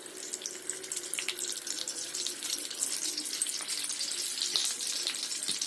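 Hot oil sizzling with fine crackles as stuffed tomatoes fry in a heavy kadai, growing gradually louder as oil is poured over them.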